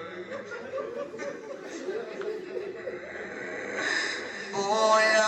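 Mourners weeping and sobbing in grief in a pause of a chanted Arabic lament for the dead. Near the end a man's chanting voice comes back in on a long held note.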